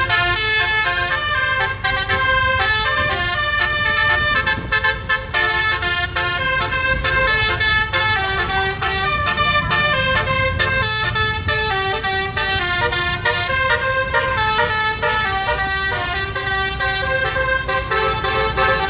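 Bus telolet horn, a 12-trumpet Basuri air horn set, playing a melody of quickly changing notes, several at once, without a break. A low rumble runs underneath.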